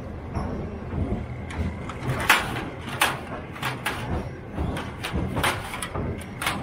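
Train carriage clattering over a low rumble, with a run of irregular sharp knocks and clanks starting about two seconds in.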